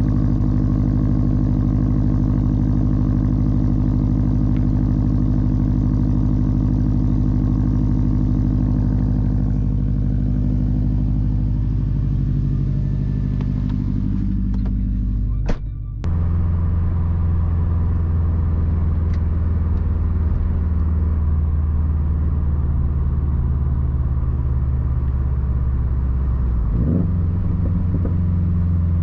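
2013 Subaru WRX STI's turbocharged flat-four engine running through a Tomei Expreme Ti titanium exhaust, heard on the move at steady revs. Just past halfway the note eases off, there is a sharp click, and the engine settles into a lower, deeper drone.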